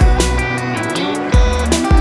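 Background music: a track with sustained melodic notes and deep bass hits that drop in pitch, twice in quick succession.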